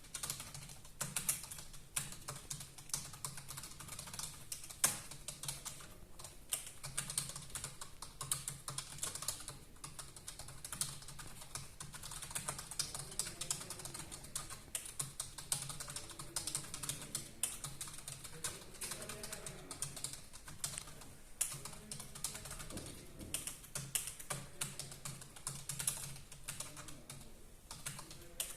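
Fast touch-typing on a computer keyboard during a typing speed test: a dense, continuous stream of key clicks at a pace of about 94 words per minute.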